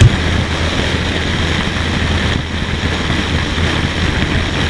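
Cruiser motorcycle's engine running steadily at cruising speed, a steady low drone under an even rush of wind and road noise.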